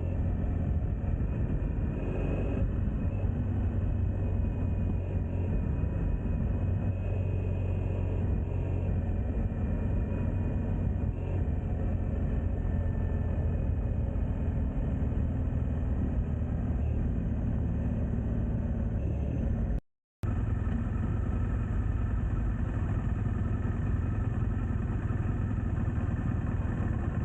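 Motorcycle running at a steady cruise, a low, even rumble of engine and wind with no revving. The sound cuts out for a split second about two-thirds of the way through, then resumes unchanged.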